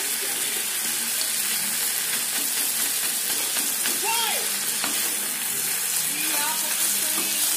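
Rabbit meat stir-frying in a wok: a steady sizzle, with a wooden spatula stirring and turning the pieces.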